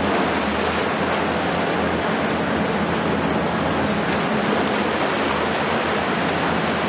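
Heavy demolition excavators' diesel engines running with a low, steady drone under a loud, even rushing noise that does not let up.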